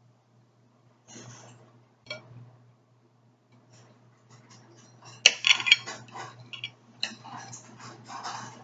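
Table knife sawing through a steak, scraping and clinking against a ceramic plate: a couple of short scrapes early, then a dense, louder run of scrapes and clinks from about five seconds in.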